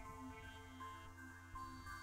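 Quiet background music with long held notes.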